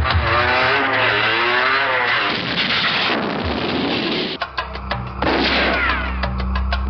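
Action-film soundtrack with loud gunfire and blasts, then a rapid run of shots in the second half.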